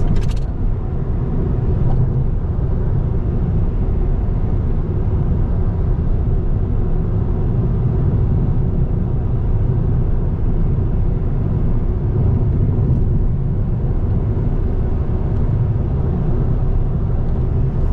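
Car driving along, heard from inside the cabin: a steady low rumble of engine and tyre noise.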